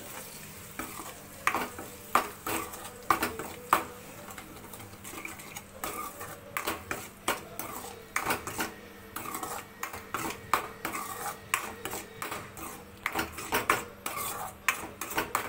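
A metal spatula scraping and clinking against a metal kadai (wok) as eggs frying in oil are stirred and broken up: irregular scrapes and knocks, several a second.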